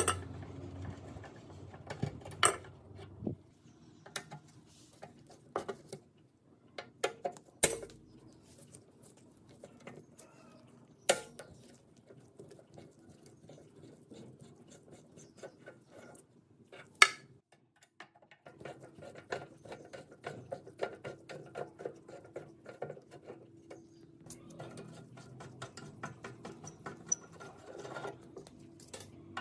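Screwdriver turning out screws from the rusted steel frame of a book-binding machine: runs of rapid fine metallic ticking, broken by a few sharp metal clinks and knocks, the loudest a little past halfway.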